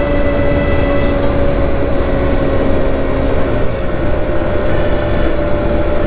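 Suzuki Birdie 50 moped engine running steadily at road speed, with wind rumbling on the microphone. A little past halfway the engine note sags briefly, then picks up again near the end.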